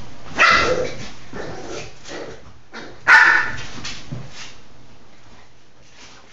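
Dogs at play: two sharp barks about three seconds apart, each trailing off, the second slightly louder.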